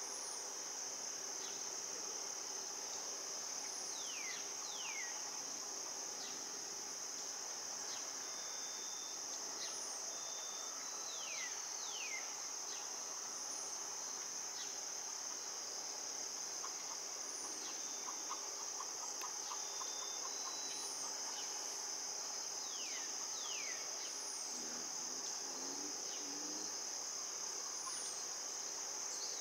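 Steady high-pitched outdoor insect chorus, with bird chirps every several seconds, several of them quick falling notes heard in pairs.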